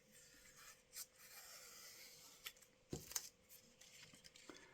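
Faint rubbing and scratching of masking tape being peeled off a die-cast model bus, with a few small clicks.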